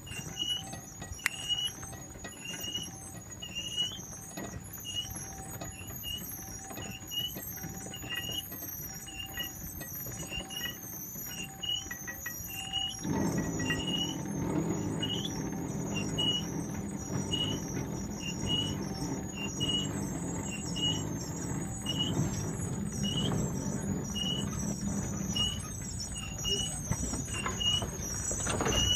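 Cable-hauled haulage-way trolley running up a steep rail incline: a short high squeak repeats at an even pace of a little over one a second, over a steady high whine. A little before halfway, the low rumbling running noise steps up louder as the trolley draws near.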